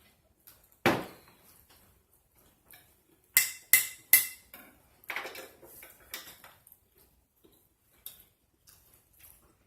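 Close-up eating and table sounds: sharp clicks and knocks. One loud knock comes about a second in, three more follow close together about three and a half seconds in, then softer clatter.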